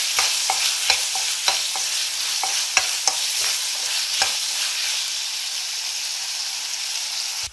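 Sliced bell peppers, onion and mushrooms sizzling in hot oil in a kadai while a spatula stirs them and scrapes the pan, about two strokes a second. After about four seconds the stirring stops and the sizzle goes on alone, then cuts off abruptly at the end.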